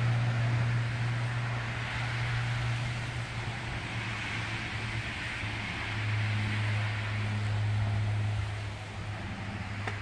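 A steady low engine hum, dropping slightly in pitch about six seconds in, under a steady hiss.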